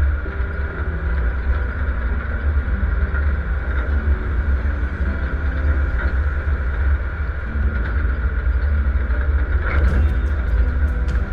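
GAZ-69's engine running steadily, a deep even sound with a few sharp knocks or rattles near the end.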